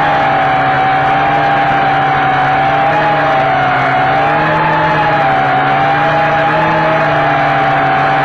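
Quadcopter's electric motors and propellers whining steadily, heard close up through its onboard camera. The pitch of the rotors wavers slightly as the drone holds and adjusts its flight.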